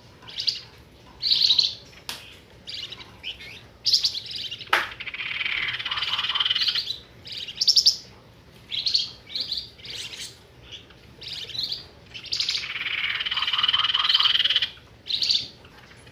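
Lure-call recording of the songbird known in Indonesia as 'flamboyan': runs of short, sharp chirps and whistled notes, broken twice by a long buzzing, rattling chatter lasting two to three seconds.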